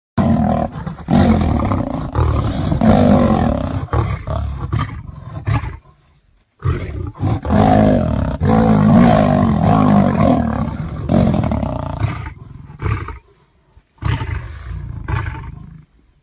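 Big cats roaring loudly in long, rough bouts, with short breaks about six and thirteen seconds in.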